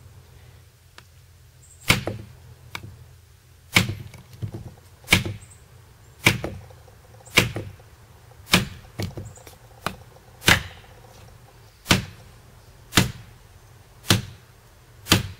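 DPX HEST 1.0 folding knife's spine whacked against a wooden log again and again, about eleven sharp strikes roughly a second apart. It is a spine-whack test of the titanium frame lock with the rotoblock disengaged, and the lock holds under the shocks.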